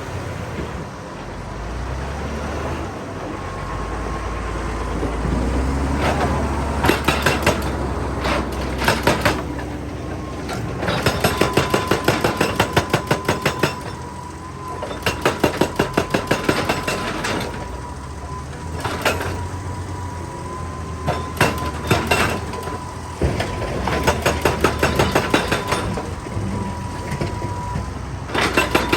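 Excavator-mounted hydraulic rock breaker hammering rock in repeated bursts of rapid blows, with short pauses between bursts. Under it the excavator's diesel engine drones steadily, with a thin steady whine.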